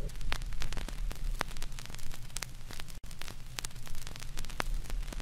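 Crackling static over a low hum, with irregular sharp clicks scattered throughout.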